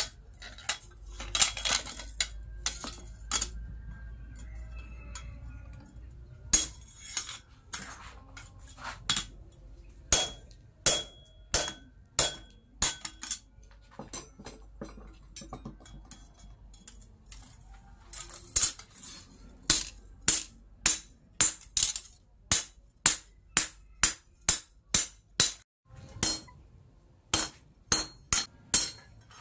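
Hand hammer striking a steel punch on red-hot plough-disc steel on an anvil: sharp metallic clinks, each with a short ring. The blows are irregular at first, few in the middle, then come steadily about two a second for the last ten seconds.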